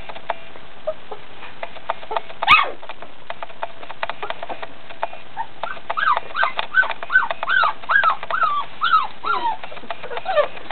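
Three-week-old puppies whimpering: one sharp yelp about two and a half seconds in, then a quick run of short rising-and-falling whines, two or three a second, in the second half.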